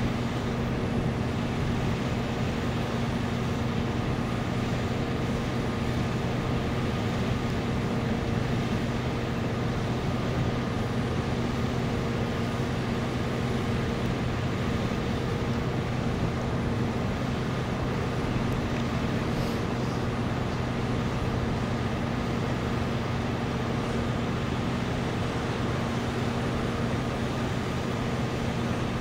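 A vehicle engine idling steadily, an unchanging low hum over a constant background rush.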